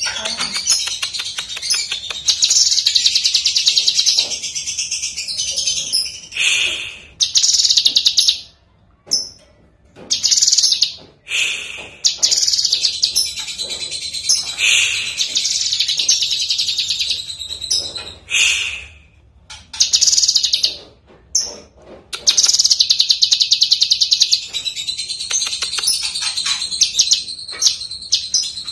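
Cucak kinoi, a leafbird, singing a loud, rapid, chattering song in long unbroken stretches, broken by a few short pauses around the middle.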